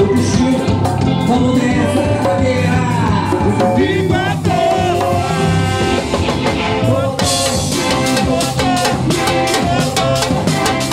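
Live Brazilian carnival band music: an instrumental passage between sung verses, with melody instruments over bass and drum kit. About seven seconds in, the percussion turns busier, with rapid, even strokes.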